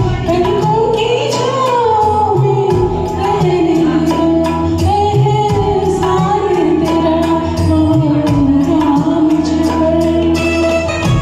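A woman singing a Hindi film song in long, gliding held notes over a backing track with a steady beat. The voice stops near the end and the instrumental accompaniment continues.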